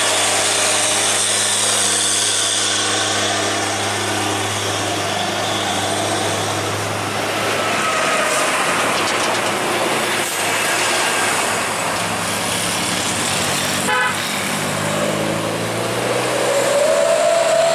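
Heavy diesel truck engine running with a steady low drone as it passes, then mixed road traffic with tyre noise from trucks and cars. Near the end a tone rises slowly in pitch.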